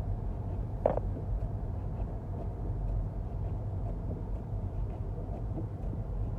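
Steady low rumble of a car, heard from inside the cabin, with one short knock about a second in.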